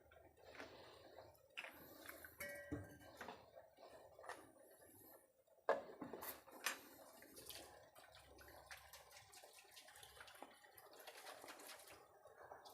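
Faint clinks and scrapes of a spoon against cookware as ground masala paste is added to a pot of sambar, a few small sharp taps among quiet kitchen room tone.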